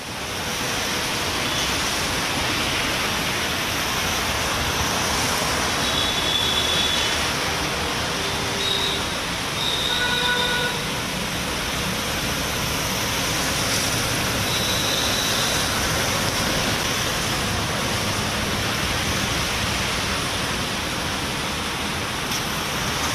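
Heavy rain falling on a busy road, with traffic driving through the wet: a steady hiss of rain and tyres on water. A few short high tones break through about six, ten and fifteen seconds in.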